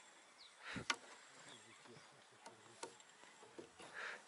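Faint handling sounds of a spinning rod and reel as a small fish is wound in. A single sharp knock about a second in is the loudest sound, followed by a few faint clicks.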